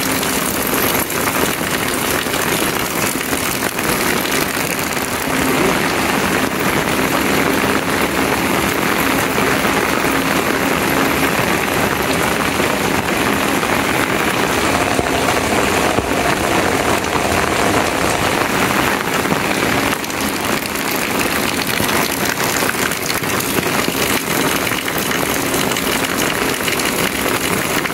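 Heavy rain pouring steadily onto a flooded street, a dense, even hiss of rain hitting standing water and pavement.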